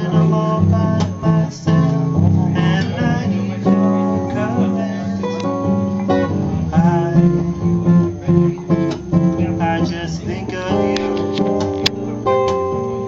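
Live acoustic guitar music, strummed chords with picked single notes, in an instrumental passage.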